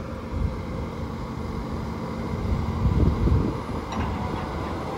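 Komatsu PC210LC-10 excavator's six-cylinder diesel engine running while the hydraulics swing the boom down and lower the bucket. The steady low rumble grows louder for a moment about three seconds in.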